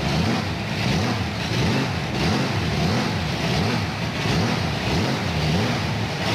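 Monster truck engine revving up and down over and over, its pitch swelling and falling a little faster than once a second.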